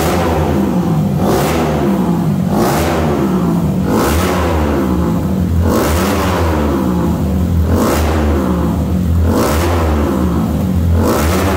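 Tuned single-cylinder Honda motorcycle engine, bored 4 mm oversize and fitted with an aftermarket exhaust, being revved in quick blips about every second and a half. Each blip falls back toward idle before the next.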